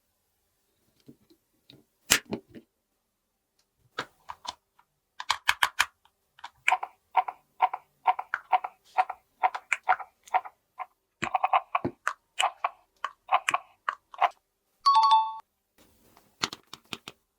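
Light plastic clicks and taps from handling small toy doctor-kit pieces, coming in a quick, even run of about three a second. A brief beep follows near the end.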